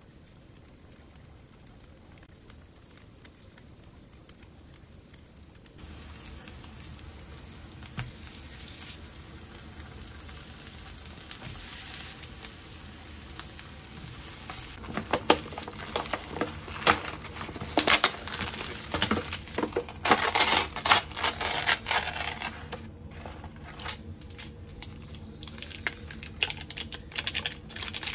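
Kitchen cooking sounds: a steady sizzle, then from about halfway a busy run of clicks and clatters of utensils against cookware.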